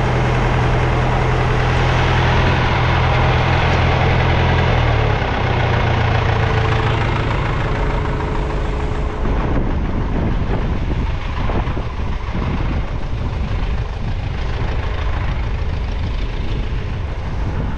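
Engine running steadily, driving the machinery used to empty a soybean bin. Its low hum changes about five seconds in and gives way to a rougher, clattering sound for the rest of the time.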